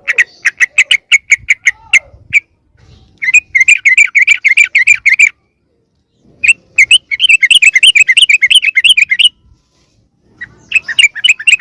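Yellow-vented bulbul (trucukan) lure call: rapid, noisy chattering notes in four runs of two to three seconds with short pauses between. This is the agitated call played to draw wild bulbuls in.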